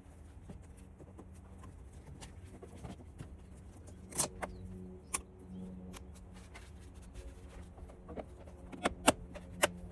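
A few sharp clicks and knocks, scattered through the second half and loudest near the end, over a faint steady hum: the sound of tools and parts being handled during work on an engine bay.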